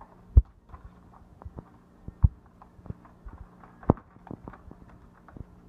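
Scattered sharp knocks and taps from a cardboard tube poked at an agitated cat, the three loudest spaced about a second and a half apart.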